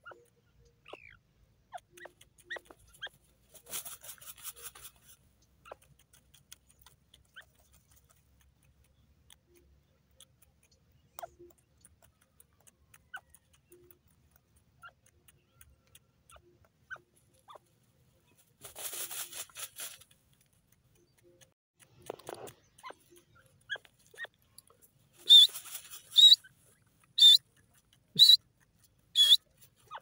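Grey francolin dust-bathing in dry soil: scattered small scrapes and clicks of earth and pebbles, and a few short rustling flurries of feathers and dust. Near the end come five loud, sharp bursts about a second apart.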